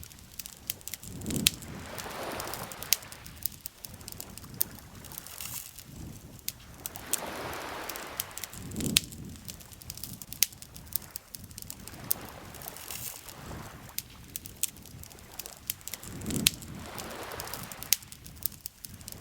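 Campfire crackling with frequent sharp pops, over lake water lapping in slow swells that come three times, about seven to eight seconds apart.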